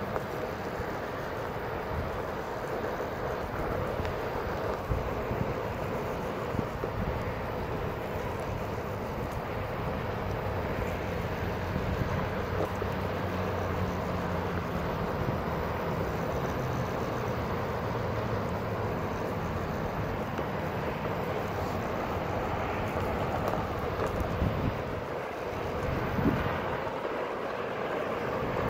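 Onewheel Pint electric skateboard rolling downhill while carving, its hub motor giving a low hum that shifts in pitch with speed, over tyre noise on pavement and wind on the microphone. A few short knocks come through, the loudest near the end.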